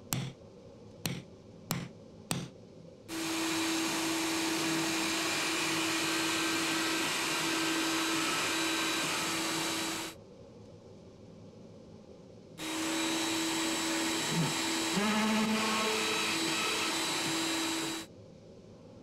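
A few sharp knocks, then an electric drill with a countersink bit running at a steady pitch for several seconds, stopping, and running again. Partway through the second run the pitch shifts as the bit cuts into the plywood board.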